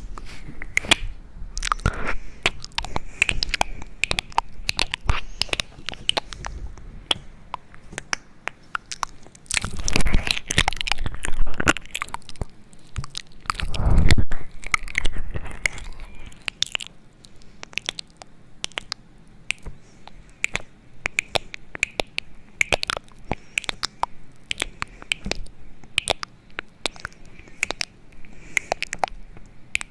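Close, crisp clicking and crunching sounds in a rapid, irregular series, with louder, fuller crunches about a third and halfway through.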